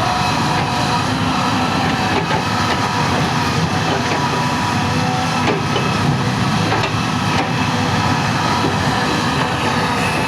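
Hitachi ZX350H excavator's diesel engine running steadily, with a few faint metallic knocks along the way.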